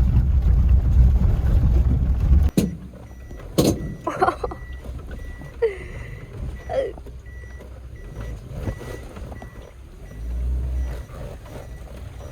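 Car rumble that cuts off abruptly about two and a half seconds in, followed by a few knocks and clicks and a faint, evenly repeating beep.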